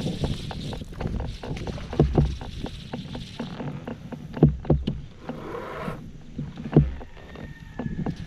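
Knocks and thumps on a fishing kayak's hull, the loudest about two, four and a half and seven seconds in.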